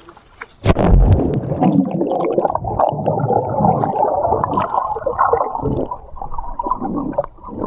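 A camera plunging into the sea with a sharp splash under a second in, then churning water heard underwater through its housing, dull and muffled with no high end.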